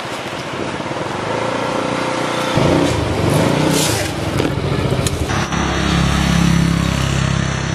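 Moped being ridden: its small engine runs steadily under wind and road noise. The sound changes abruptly about two and a half and five seconds in, where the low engine hum gets stronger.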